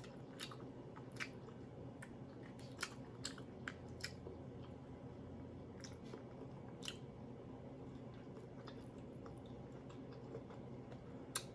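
Close-up chewing: scattered wet mouth clicks and smacks as a person eats, over a faint steady low hum.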